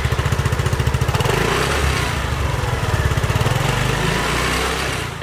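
Yamaha TriCity 125's single-cylinder four-stroke engine running, heard close at the exhaust muffler, with a steady, even beat of exhaust pulses.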